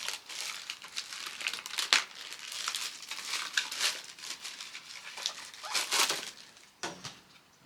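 Crinkling and crackling of plastic packaging as new plastic funnels are unwrapped and handled, with a short knock near the end.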